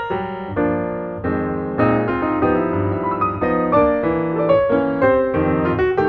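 Background piano music: a melody of single notes over held chords.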